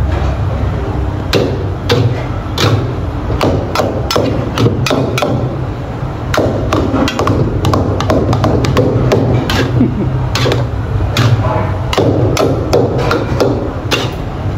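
Two long-handled steel wok spatulas clanking and scraping against a large steel wok as a big batch of fried rice is chopped and tossed, with irregular metallic strikes about two a second. Beneath them runs a steady low roar from the gas wok burner.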